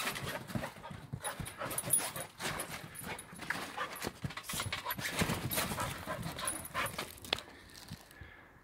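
Chocolate Labrador puppy panting as its paws step and knock irregularly on a trampoline mat; it gets quieter in the last second or so.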